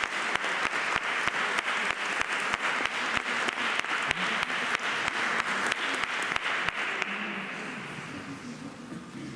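Audience applauding, a dense patter of many hands clapping that fades away over the last two seconds or so.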